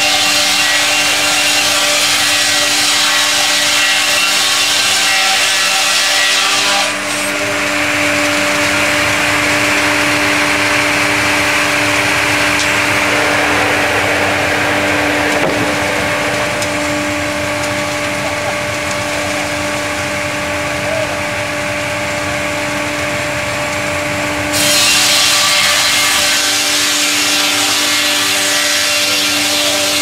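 Twin-blade horizontal circular sawmill, its two electrically driven saw blades running and ripping lengthwise through a log: a steady motor hum under a loud sawing hiss. The hiss abruptly loses its high end about seven seconds in and gets it back near the 25-second mark.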